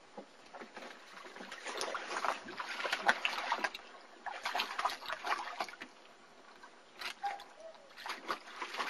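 Water splashing and sloshing in a plastic wading pool as German Shepherd puppies wade and paw through it, in three bursts of a second or two each.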